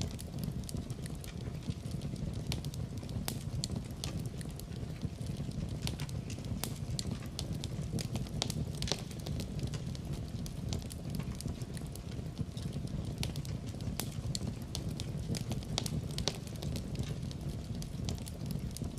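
Fireplace fire crackling and popping, with sharp irregular snaps over a steady low rumble of flames.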